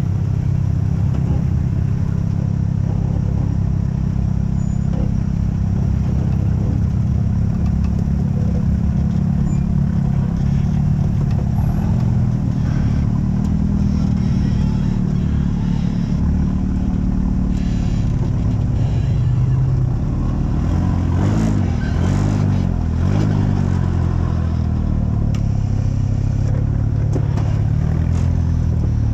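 Off-road vehicle engine running continuously under load. Later on its pitch rises and falls several times as it revs, with scattered knocks.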